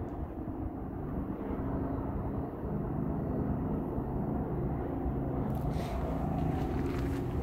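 Steady low mechanical rumble, like a distant engine. From about five and a half seconds in, footsteps join it.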